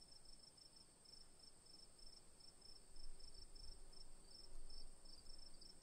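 Faint insect chorus: a steady high-pitched trill with a second insect chirping in short, even pulses several times a second. A low rumble swells about halfway through.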